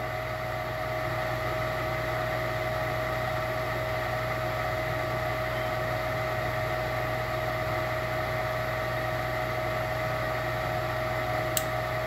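Gas furnace's draft inducer blower running with a steady hum during the ignition sequence, while the hot-surface igniter heats before the gas valve opens. A short click comes near the end.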